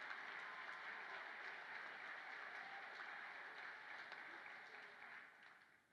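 Audience applauding in a large room, dying away near the end.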